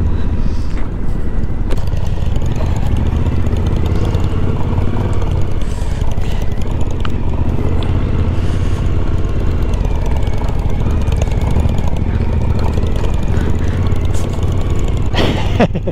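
Suzuki V-Strom 1050XT motorcycle's V-twin engine running steadily while riding, with wind and road noise.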